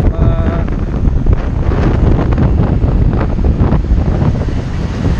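Wind buffeting the microphone of a camera on a moving motorbike: a loud, steady, rumbling rush, with road and traffic noise underneath.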